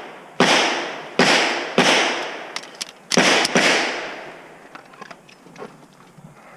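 Five pistol shots from other shooters on the range, each trailing off in a long echo: three in quick succession, then a fast pair about a second and a half later.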